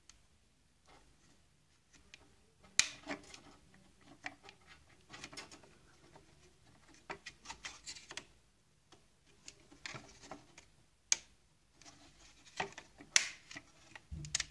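Hands and a small metal tool working at the plastic base of a Saeco Royal coffee grinding unit: scattered clicks, taps and scraping, the sharpest click about three seconds in.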